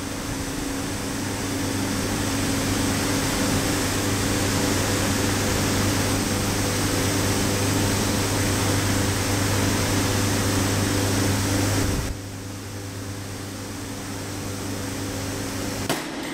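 Tensile testing machine running with a steady hum and hiss. About twelve seconds in the hiss drops away sharply, leaving the lower hum, and a short click comes near the end.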